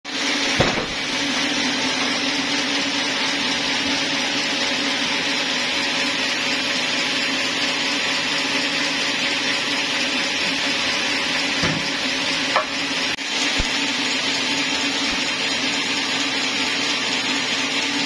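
Band sawmill running steadily without cutting, a constant hum and hiss, with a few wooden knocks as the log is rolled and set on the carriage, once near the start and a few times past the middle.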